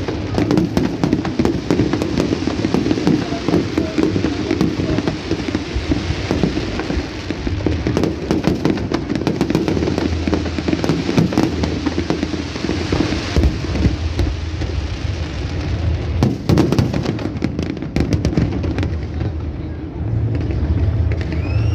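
Fireworks display: aerial shells bursting overhead with dense, irregular crackling and popping, the crackle thinning out near the end.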